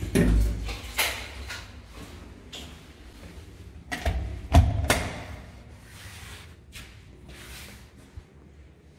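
A door being opened and shut: knocks and heavy thuds, with the loudest thud about four and a half seconds in.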